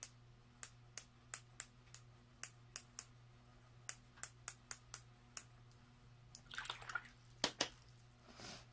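Watercolor brush tapped repeatedly to flick paint splatters onto paper: a string of sharp clicks at irregular spacing. Near the end comes a brief swish of the brush being rinsed in a water jar.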